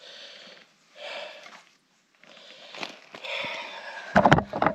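A man breathing hard, with long noisy breaths in and out, winded from digging out a gold nugget. A few loud knocks come near the end.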